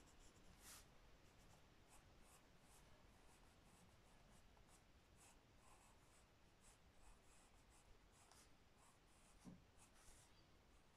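Faint scratching of a green coloured pencil shading on squared notebook paper, in quick, irregular short strokes. There is one soft knock near the end.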